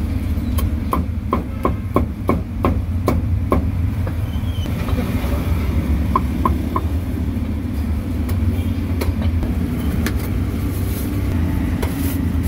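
Steel cleaver chopping roast meat on a thick wooden chopping block: a quick run of sharp knocks, about three a second, for the first few seconds, then a few lighter taps around the middle. A steady low rumble of background noise runs underneath.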